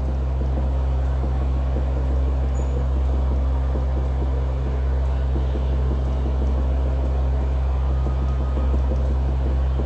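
Steady low background hum at an unchanging level, with a faint even hiss above it.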